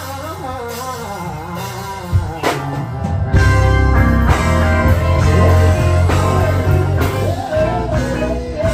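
Live blues band: a man sings over electric guitar for the first couple of seconds, then the full band with bass and drums comes in loud about three seconds in.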